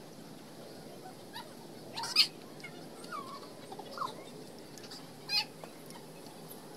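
Chickens clucking: a few short sharp calls, the loudest about two seconds in and again about five seconds in, over a steady faint background.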